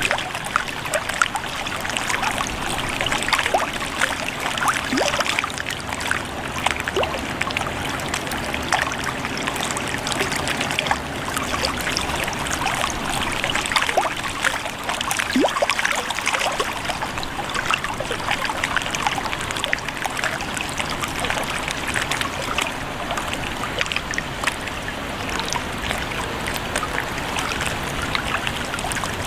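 Lake water lapping and trickling in a steady, dense patter.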